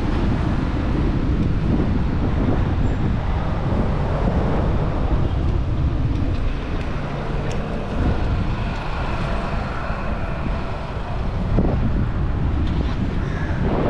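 Wind buffeting the microphone of a camera on a moving bicycle, a steady low rumble, with faint street traffic behind it.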